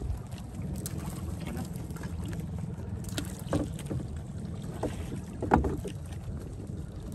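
Small fishing boat's engine running steadily, with a few sharp knocks near the middle, the loudest about five and a half seconds in.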